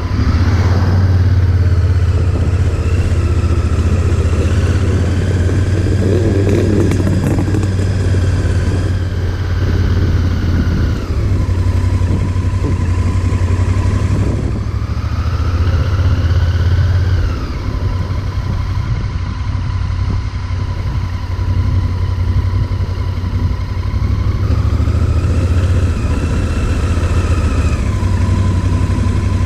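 Motorcycle engine running, its note rising and falling several times, as with revving or changes of speed, over a steady low rumble.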